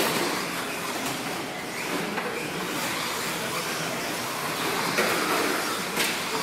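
Radio-controlled 2wd short course trucks racing on a dirt track: a steady wash of motor and tyre noise, with a few sharp knocks, at about 1, 5 and 6 seconds in.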